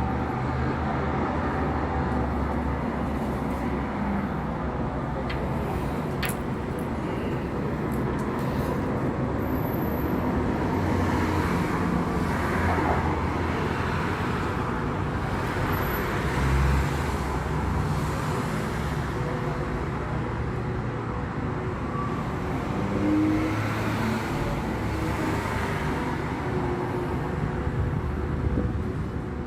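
Road traffic: cars running and passing, a steady rumble that swells now and then as vehicles go by.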